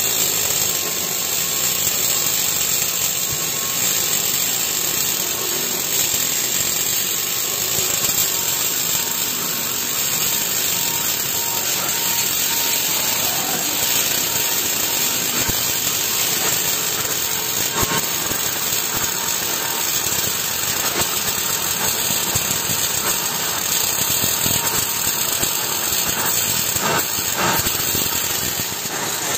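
Steel plates being arc-welded: a steady crackling sizzle from the welding arc over continuous machine noise.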